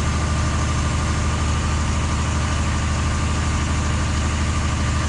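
A heavy vehicle's engine idling steadily, a low even hum with a constant hiss over it.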